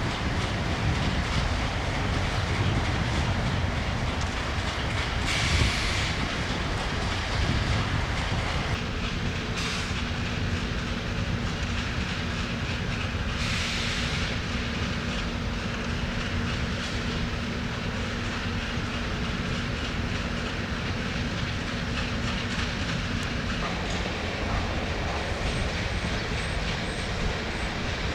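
Passenger train behind an EA1-class electric locomotive running past on jointed track: steady rumble and clickety-clack of the wheels over the rail joints. A steady hum comes in about nine seconds in and stops near 24 seconds.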